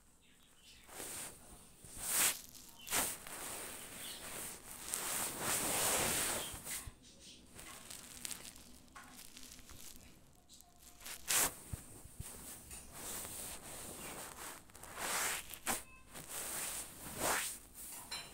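Irregular rustling and scratching on a terry towel as a baby Indian palm squirrel scrabbles and paws at the cloth, with a few sharp clicks. The longest rustle comes about five to seven seconds in.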